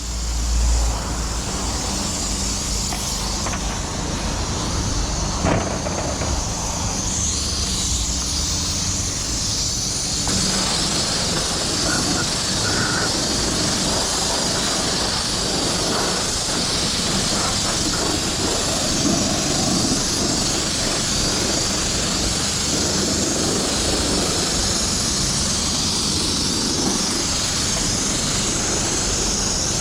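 Steady rushing noise of wind and tyres while riding a mountain bike, with a low rumble beneath a constant hiss.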